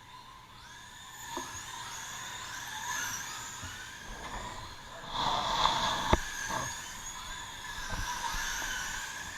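Radio-controlled race cars' motors whining as they run laps, the high whine rising and falling with throttle. It is loudest past the middle, with one sharp click a little after that.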